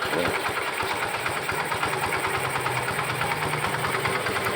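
Yamaha FZ16's single-cylinder four-stroke engine idling steadily. Its idle has been smoothed by a home-made adjustable air bleed added to a carburettor that was running too rich.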